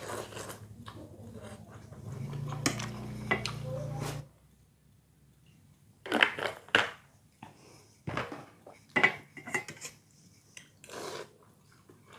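Cutlery clinking and scraping against a bowl during a meal, in sharp clusters through the second half. A low steady hum sounds for about two seconds starting a couple of seconds in.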